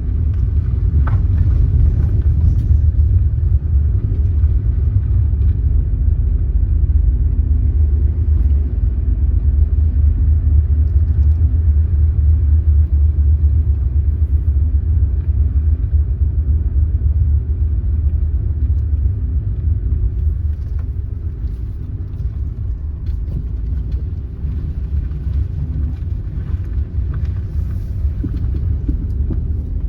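A car driving, with steady low road and engine rumble.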